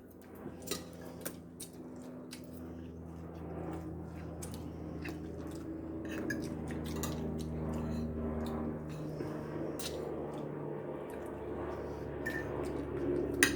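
Scattered light clicks of cutlery against dishes and soft eating sounds, over a steady low hum.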